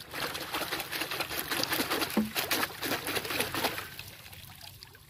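Stream water splashing and sloshing as a bundle of roots is swished and rinsed by hand in a shallow stream. The splashing is dense and irregular, then dies down to a faint wash about four seconds in.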